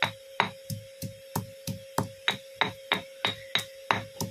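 A stone pestle pounding ginger in a stone mortar: sharp, evenly spaced knocks, about three a second, each with a dull thud. A steady hum runs underneath.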